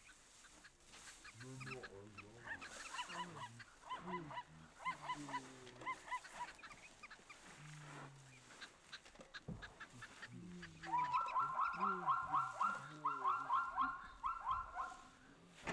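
Birds calling: a run of short repeated notes, then from about eleven seconds in a louder, rapid cackling series lasting some four seconds.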